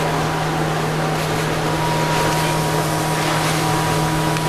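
A machine running steadily: a constant low hum under an even rushing noise, with a faint steady high tone.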